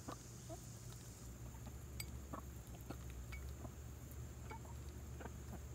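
A cross-beaked rooster pecking food from a hand-held plastic cup: light, irregular taps of beak on plastic, several in a few seconds.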